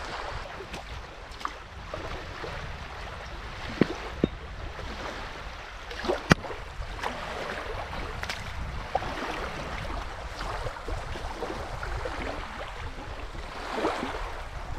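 Wind on the microphone and small waves washing at a sandy river shore, with a few sharp knocks of an axe striking a sawn log round, the loudest about six seconds in.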